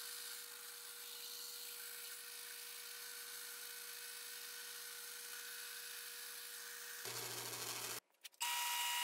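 A bandsaw runs faintly and steadily, cutting a small wooden chess knight. About eight seconds in the sound breaks off briefly, then a wood lathe runs with a steady whine.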